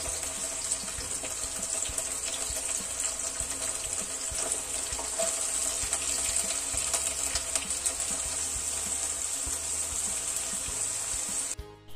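Chopped onions and green chillies frying in oil in a non-stick pot: a steady sizzle with fine crackles, which cuts off sharply just before the end.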